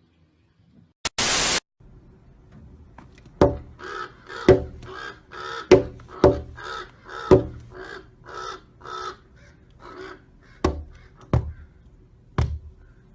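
A crow cawing over and over, about two calls a second and thinning out toward the end, with sharp knocks in between. A brief burst of hiss comes just before it.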